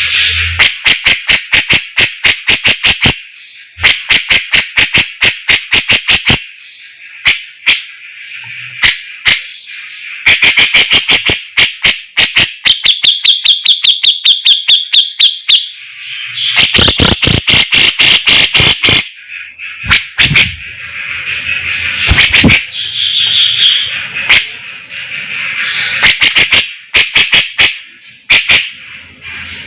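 Grey-cheeked bulbul (cucak jenggot) singing loudly. It gives rapid trains of sharp repeated notes and trills in phrases of a second or two, with short pauses between them.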